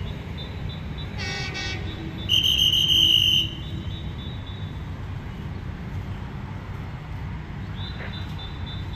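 Two horn toots from an approaching EM120N railway track inspection car: a short blast about a second in, then a louder, higher-pitched one lasting about a second. A low steady rumble runs underneath.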